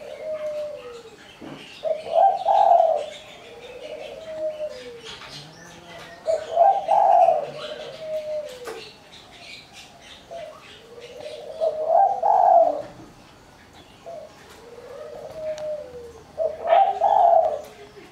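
Spotted dove cooing its song, a bird with the high, small 'mersik' voice. The phrase repeats four times, about every five seconds, each time a loud burst of coos followed by softer falling notes.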